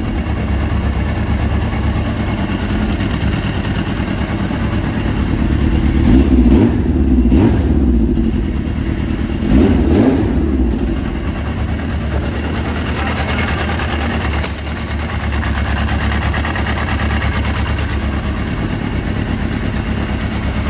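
Yamaha RX1's 1000cc four-stroke four-cylinder engine idling with three short throttle blips a few seconds in, run after a fresh oil change to circulate the oil before the level is checked.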